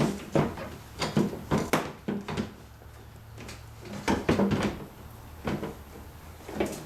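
Plastic replacement headlight assembly knocking and scraping as it is slid into its mounting in the front of a minivan: a series of sharp clicks and knocks, bunched in the first two seconds and again after about four seconds.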